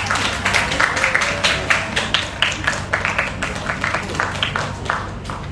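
A quick, irregular run of sharp taps, several a second, that stops shortly before the end.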